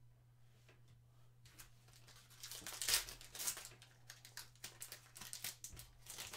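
Trading-card pack wrapper crinkling and tearing as a pack is ripped open, a run of irregular rustles loudest about three seconds in.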